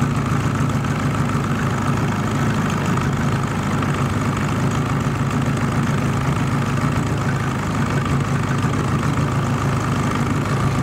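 Small outboard motor running steadily at low speed, a constant even drone.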